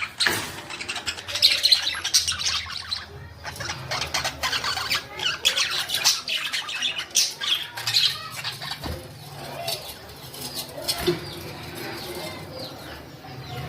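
Budgerigars chattering and squawking: a busy, unbroken stream of short, fast calls.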